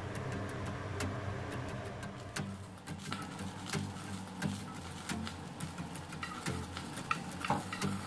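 Irregular light clicks and taps of cooking oil being poured into a nonstick frying pan and spread with a wooden spatula.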